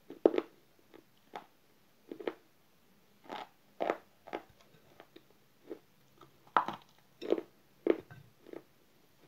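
A person chewing hard, brittle pieces of eating slate and baked clay with the mouth close to the microphone: about a dozen sharp, irregular crunches as the pieces break, with short quiet gaps between bites.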